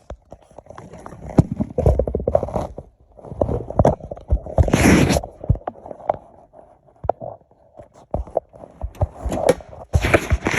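Irregular scraping, clicks and knocks of hands and tools at work, with the loudest scrape about five seconds in.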